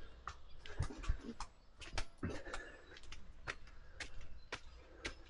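A person walking: irregular footsteps and small clicks and knocks, with a few soft low thumps in the first two seconds.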